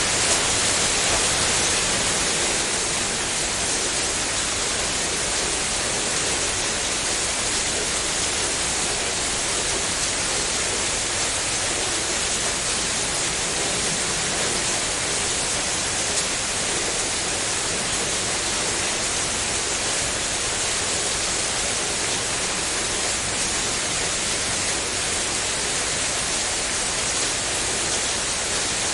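Steady rain, an even hiss with no single drops, thunder or other events standing out.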